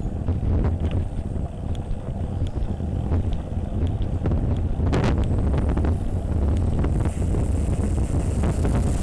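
Heavy wind buffeting on the microphone of a camera on a moving bicycle, over the low road rumble of a multi-axle lorry passing close alongside.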